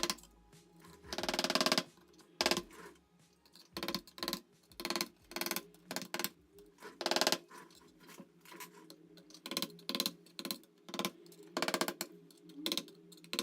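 Irregular clicks, taps and short scraping knocks from small tools and parts being handled during a laptop teardown, over faint background music.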